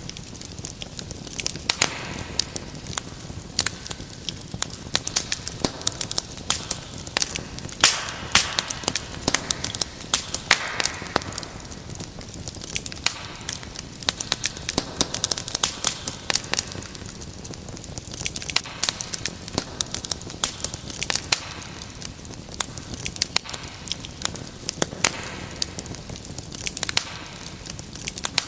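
Wood fire crackling: irregular sharp pops and snaps, many a second, over a steady low hiss of burning.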